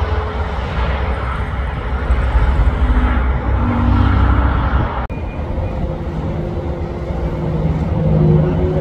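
Highway traffic: a heavy truck and cars passing close by with a low rumble of engines and tyres. The sound cuts abruptly about five seconds in to quieter, more distant traffic, with an engine note rising near the end.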